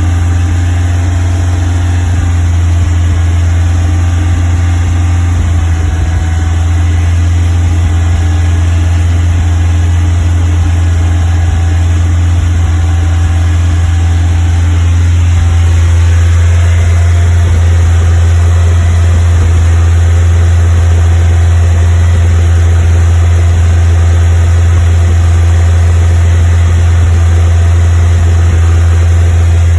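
Westfield kit car engine held at a steady 2500 rpm, running with a misfire. The engine note stays loud and even in pitch throughout.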